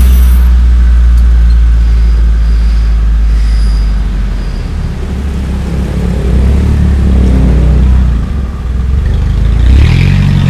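Motorcycle engine running at riding speed, with a heavy low rumble. The engine note climbs again as it speeds up near the end.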